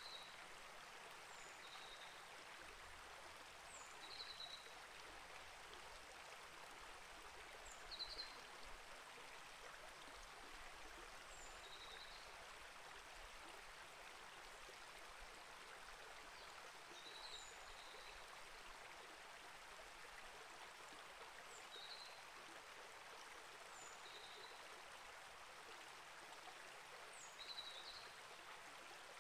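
Small rainforest creek flowing steadily, a faint even trickle and rush of water. Short high bird chirps come every few seconds over it.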